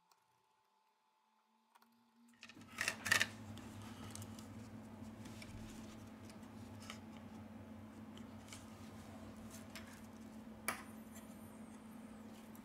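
Light clicks and taps of small tools and parts handled during phone reassembly, loudest about three seconds in and again near the end, over a steady low hum that starts a couple of seconds in.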